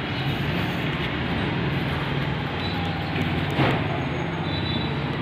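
Steady low hum of a nearby running vehicle engine over street traffic noise, with a short rustle or knock about three and a half seconds in.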